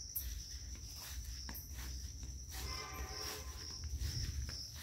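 Insects chirring in a steady, high-pitched trill over a low rumble.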